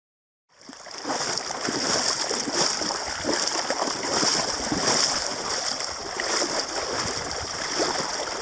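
River water flowing and splashing, coming in about half a second in: a steady rush with irregular small splashes.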